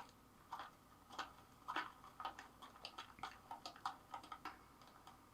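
Faint, irregular small clicks and ticks, a few a second, over near silence.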